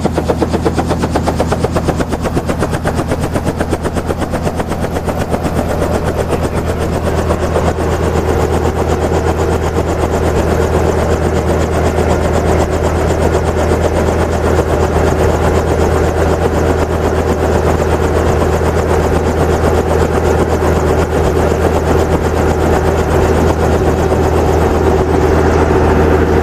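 Robinson R44 Astro helicopter running on the ground, its rotor beating in a fast steady chop over a steady engine drone. It grows a little louder about six seconds in.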